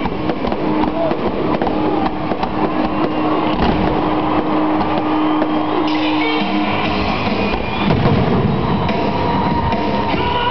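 1980s rock music with electric guitar and drums, played loud, with a long held note over the first seven seconds. Fireworks bangs and crackle are mixed in.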